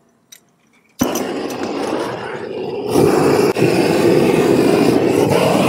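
Propane roofing torch lit about a second in, then burning with a steady rushing noise that gets louder about three seconds in, heating the SBS rubber peel-and-stick membrane to make it stick.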